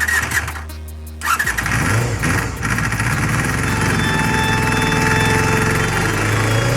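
Honda MC23 Jade's 250 cc MC14E inline-four engine starting, catching about a second in and then running, its speed wavering at first before settling, with background music. The owner reports an abnormal noise from this engine, which he is tackling with a clutch replacement.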